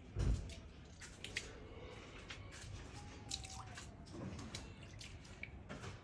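A low thump about a quarter second in, then water dripping in scattered small drops and light clicks.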